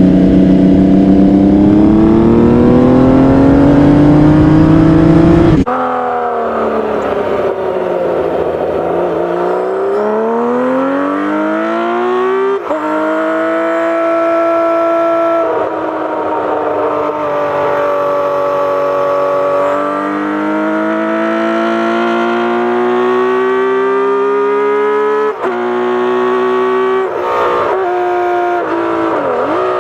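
Kawasaki KZ1300 inline-six motorcycle engine under acceleration, rising in pitch and dropping sharply at each gear change. It is loud for the first five or so seconds, then cuts suddenly to a quieter recording of the same kind of run, where the revs fall, climb, and drop at several shifts.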